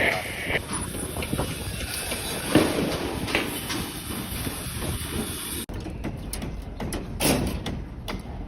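Worksite noise: scattered knocks and clinks over a steady rumble, with an abrupt break about two-thirds of the way in.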